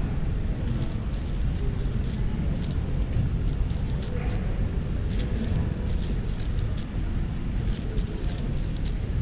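Irregular clusters of sharp clicks from a MoYu AoShi WR M 6x6 speedcube as its layers are turned, over a steady low background rumble.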